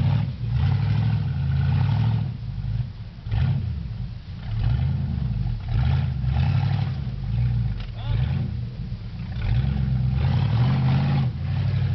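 Lifted Jeep Cherokee XJ's engine revving in repeated bursts, swelling and easing every second or two, as the Jeep crawls over rocks.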